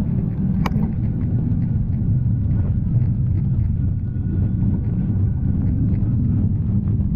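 Steady low rumble of riding a bicycle on a wet road: wind buffeting the camera microphone along with tyre and road noise. A brief high squeak sounds about a second in.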